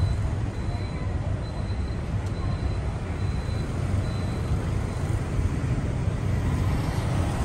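Steady low rumble of a motor vehicle under way: engine and road noise.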